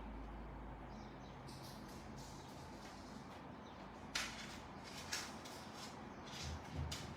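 Low steady hum with a few short sharp clicks about four and five seconds in, and small clicks and dull knocks near the end, as of small tools or parts being handled during a repair.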